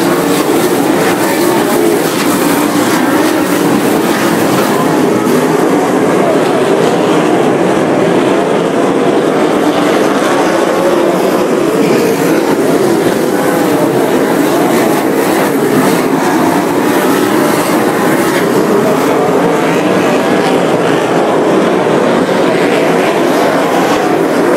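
A field of USAC sprint cars racing on a dirt oval, their engines running loud and steady with no break as the pack circles the track.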